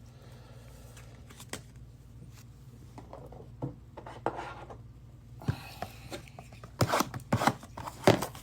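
Trading cards and pack wrappers being handled by hand: faint rubbing and sliding at first, then a run of sharp clicks and snaps in the last few seconds, over a faint low hum.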